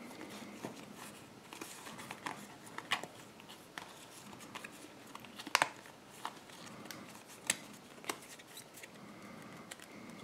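Stack of Topps Force Attax trading cards handled in the hands and fanned out: faint rustling of card stock with scattered soft clicks and flicks of card edges, a couple of them sharper.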